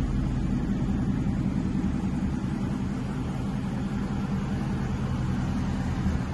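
Ford Mustang GT's 5.0-litre V8 idling steadily through a Borla aftermarket exhaust, a low, even idle with no revving.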